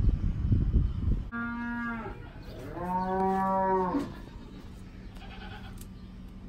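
Cattle mooing twice: a short call, then a longer call that rises and falls in pitch. Before the calls there is a low rumbling noise.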